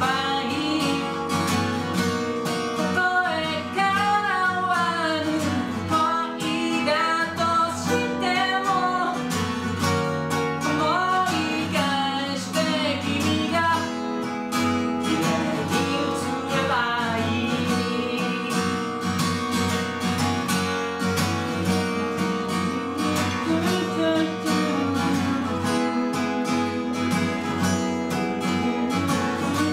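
A man singing to his own acoustic guitar in a live solo performance. The singing is mostly in the first half; after that the guitar plays on largely alone.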